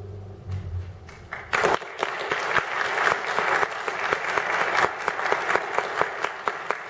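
Audience applause at the end of a song, breaking out strongly about a second and a half in after the last low note of the music dies away, then a dense, steady clapping.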